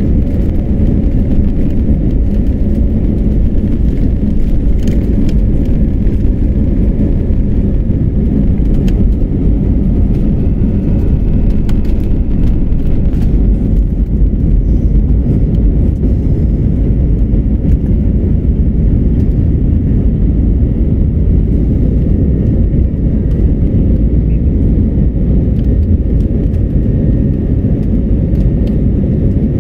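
Cabin sound of a jet airliner at takeoff thrust: a loud, steady engine roar and rumble through the takeoff roll, liftoff and initial climb. The occasional rattles and knocks of the runway roll stop about halfway through, leaving a smoother roar once airborne.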